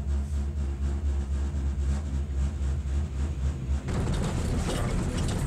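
Cable car gondola riding along the haul rope with a steady low hum inside the cabin. About four seconds in, the sound turns to a rough rumble and clatter of rapid clicks as the gondola passes over a support tower's sheave rollers.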